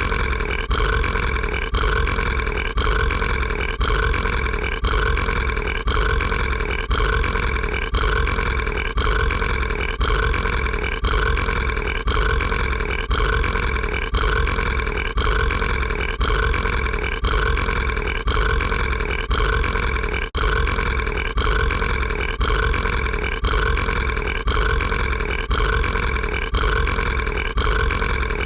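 A cartoon character's drawn-out burp, a clip of about a second looped back to back over and over, each repeat cut off sharply where the next begins.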